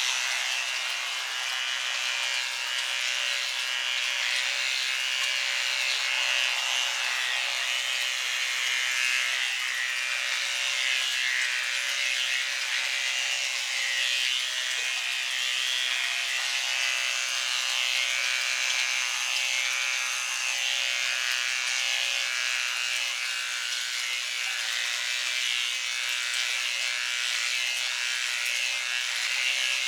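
Electric hair clippers buzzing steadily as they cut a dog's hair.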